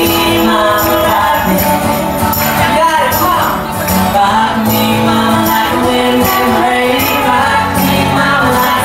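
A man and a woman singing a country song together live through a PA, with a steady rhythmic jingling beat underneath.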